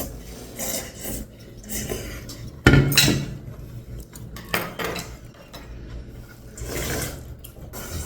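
Cutlery clinking and scraping against dishes during eating at the table, in irregular bursts, with one louder knock about three seconds in.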